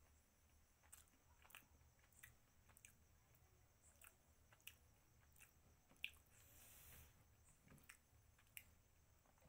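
Faint chewing of spicy mutton: small wet mouth clicks every half second or so, with a brief hiss near the middle.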